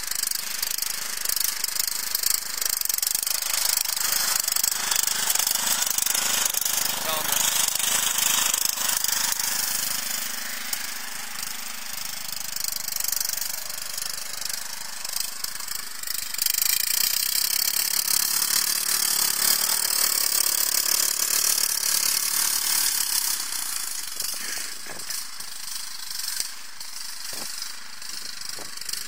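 Riding lawn mower's small engine running hard as it drives over grass, growing louder and quieter by turns.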